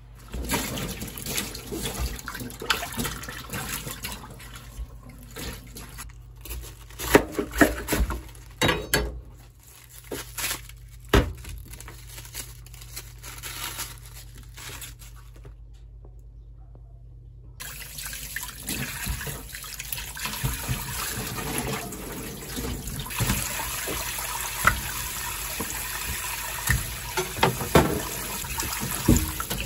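Vegetables being washed at a stainless steel kitchen sink. First comes irregular splashing and sloshing of water with sharp knocks as a cabbage is handled in a glass bowl and its leaves are torn off. A little past halfway a tap starts running steadily onto peeled potatoes and a carrot in a glass bowl, with splashes as hands work them under the stream.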